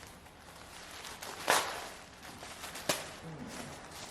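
Packaging being torn open and unwrapped by hand: a loud rip about a second and a half in, a sharp snap near three seconds, and light rustling between.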